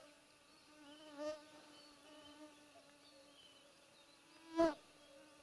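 Flying insects buzzing around the microphone, a faint wavering hum, with one passing close and loud for a moment about four and a half seconds in.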